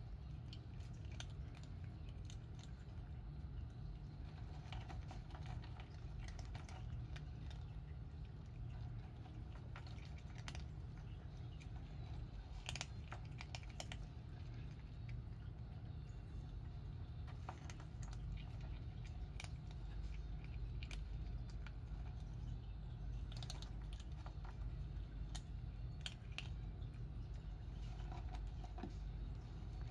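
Two cats crunching dry kibble: scattered small, crisp clicks at an irregular pace, over a steady low rumble.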